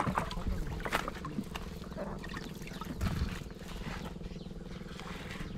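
A small engine running steadily at a constant speed, with a few short knocks over it.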